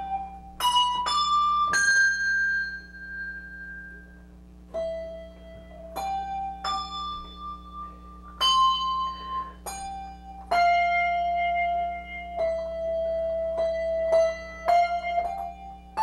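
English handbells rung as a slow melody, one note at a time; each stroke rings on clearly and fades before or as the next is struck.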